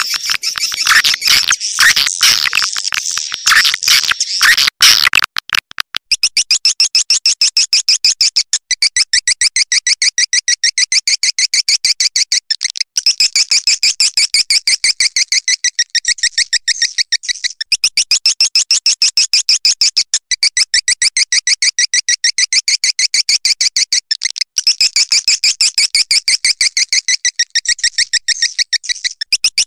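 Swiftlet calls played as a lure recording to draw swiftlets in. Dense high chattering for about the first five seconds gives way to a rapid, regular run of high twittering chirps that repeats in phrases, broken by short pauses every few seconds.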